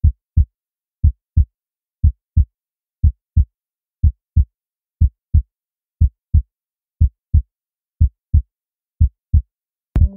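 Heartbeat sound effect: pairs of short, low thumps (lub-dub) about once a second, ten beats in all, with silence between them. Music with steady tones comes in right at the end.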